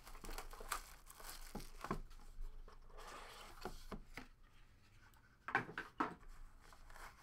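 Trading-card packaging being opened and handled by hand: soft rustling and tearing of wrapper and cardboard, with scattered light taps and knocks, a few louder near the end.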